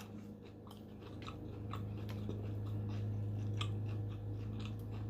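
Faint, irregular clicks and crunches of a person chewing food, over a steady low hum.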